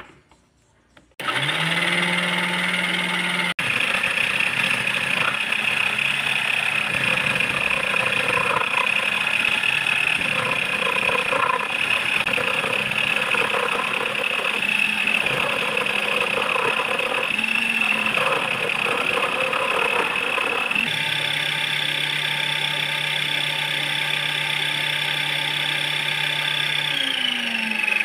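Small lathe spindle motor whining steadily while a cutting tool turns down the shank of a hex bit held in its drill chuck, with irregular scraping from the cut. About seven seconds before the end the cutting noise stops and the whine rises in pitch, then it drops back near the end.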